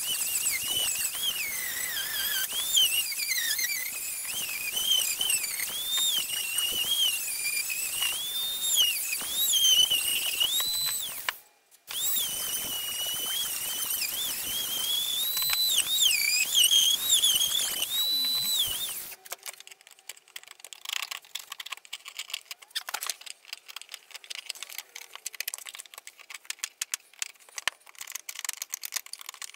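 High-pitched whine of a power tool cutting wood, its pitch dipping and rising as the load changes, cut off briefly once. About two-thirds of the way through it gives way to a scratchy run of rapid clicks.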